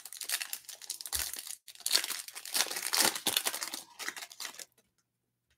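Plastic wrapper of a Panini Select UFC trading card pack being torn open and crumpled by hand: a dense run of crinkling and crackling that stops about a second before the end.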